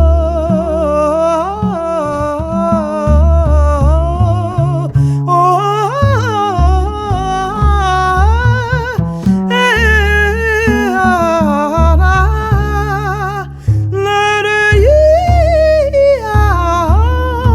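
Jazz ballad: a woman's voice singing a wordless melody with vibrato, over a line of low bass notes.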